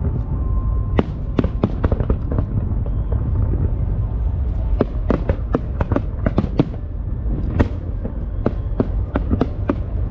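Fireworks going off: a continuous low rumble of bursts with many sharp crackling pops on top, coming in quick clusters.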